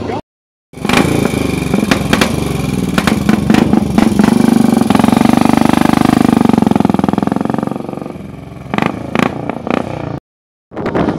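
Racing motorcycle engine running hard at high revs. It is loudest around the middle, eases off about eight seconds in, and gives a few sharp cracks after that.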